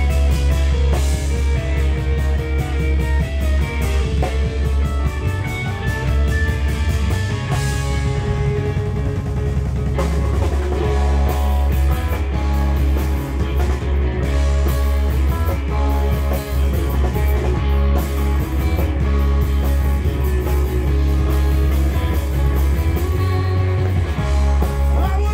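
Live rock band playing: electric guitars over a heavy bass line and a drum kit with cymbal crashes.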